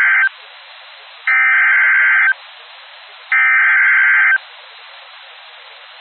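Emergency Alert System SAME header on a weather radio broadcast: bursts of digital data tones, each about a second long, with about a second of radio hiss between them. The first burst ends just as this begins, two more follow, then hiss. The header is the coded message, sent three times, that sets off alert receivers; here it encodes a severe thunderstorm warning.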